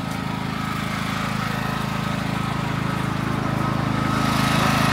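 Small engine running steadily with a low, even throb, growing a little louder near the end.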